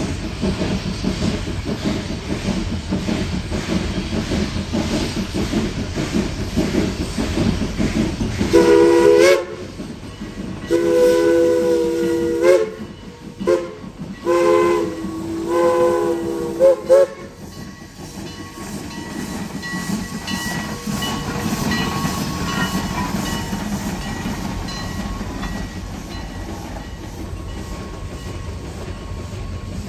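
Steam locomotive running, with a steady rumble. Over it a multi-note chime whistle sounds a series of blasts about a third of the way in, the last ones short toots, and then the train keeps rumbling along.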